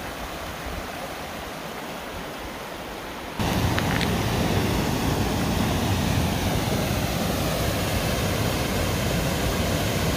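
Rushing water of a waterfall, a steady noise that gets abruptly louder about three and a half seconds in.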